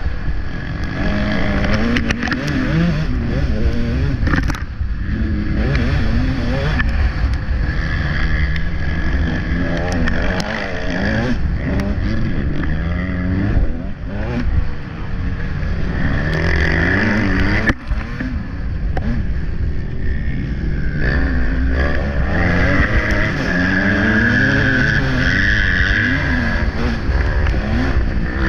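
Motocross bike engine heard on board while ridden hard on a dirt track, its revs rising and falling again and again as the rider throttles on and off and shifts gears.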